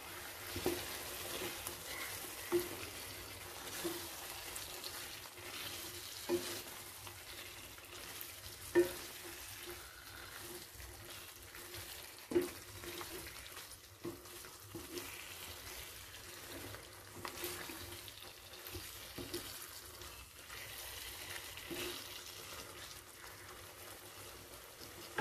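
Kadai chicken gravy sizzling faintly in a nonstick kadai while a wooden spatula stirs it, the spatula knocking sharply against the pan now and then.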